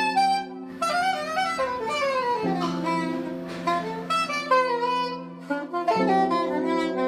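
Background music: a sliding lead melody over held low chords.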